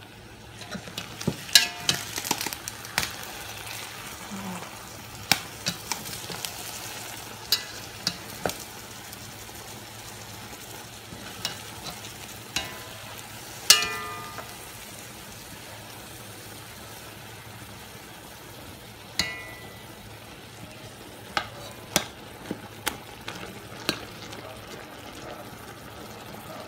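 Metal spoon clinking and scraping against a cooking pot in irregular strikes, some of them ringing, the loudest about halfway through, as stewed eggplant and vegetables are mashed. Underneath is a steady sizzle from the pot.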